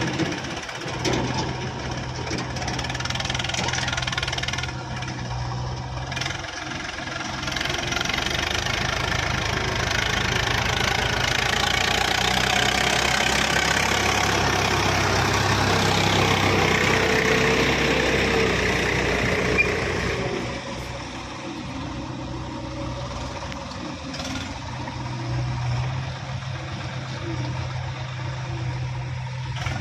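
Diesel engine of heavy farm or earthmoving machinery running steadily. About eight seconds in it grows louder and harsher, as if working under load, for about twelve seconds before settling back near twenty seconds.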